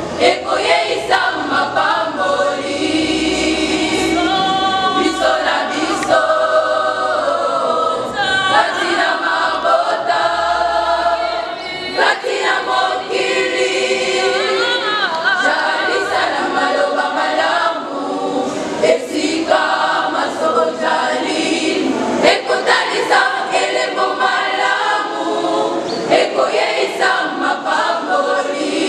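Church choir singing a gospel song, many voices together.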